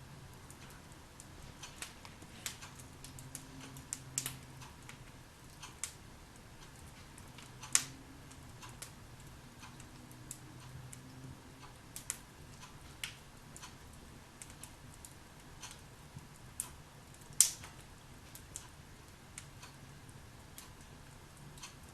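Logs burning in a fireplace, crackling with irregular small snaps and two sharper pops, about eight and seventeen seconds in.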